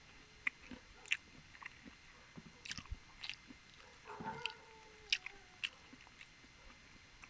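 Close-miked mukbang eating: scattered wet mouth clicks, bites and chewing at a low level, with a short falling tone about four seconds in.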